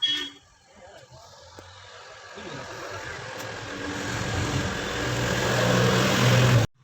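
An engine running, growing steadily louder for several seconds and cutting off abruptly near the end.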